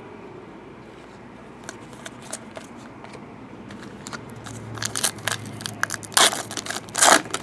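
Foil trading-card pack wrapper crinkling and tearing as it is ripped open: a few scattered light crackles at first, then dense crackling over the last few seconds, with two loud rips near the end.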